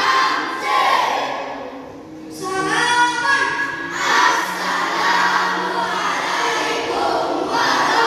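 Children's choir singing together, with a brief pause between phrases about two seconds in, then longer held notes.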